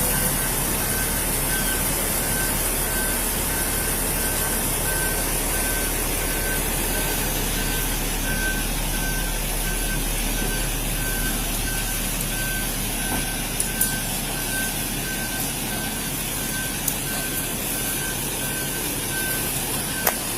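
An electronic beeper repeating a short high beep at an even rhythm over steady background noise, with a few sharp clicks in the second half.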